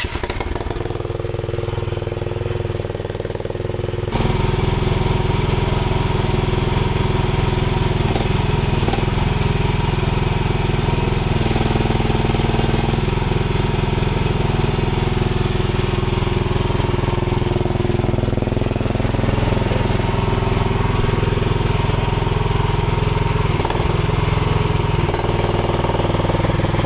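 AGT QK16R mini excavator's engine running steadily. About four seconds in it steps up louder and stays there, as the machine is throttled up to move.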